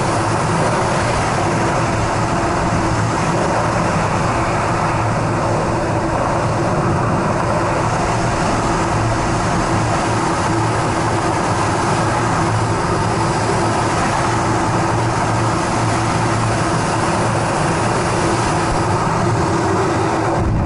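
Steady, loud rush of freefall airflow buffeting the microphone of a camera flying alongside wingsuit flyers.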